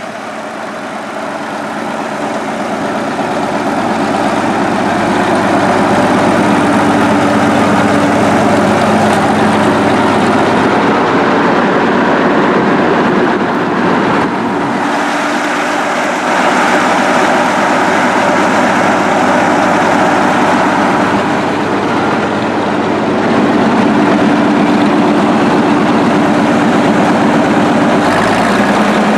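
Caterpillar No. 12 motor grader's diesel engine running steadily, growing louder over the first several seconds and louder again a little past two-thirds of the way through.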